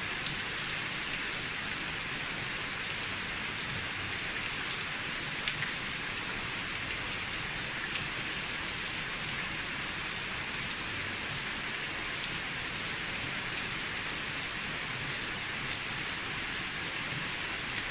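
Steady rain falling on an old mossy roof, an even hiss with scattered individual drop ticks.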